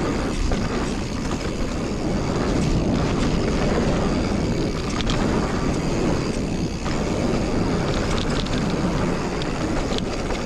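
Mountain bike descending a dirt trail at speed: knobby tyres rolling over dirt with small clicks and rattles from the bike, and wind rushing over the chest-mounted camera's microphone.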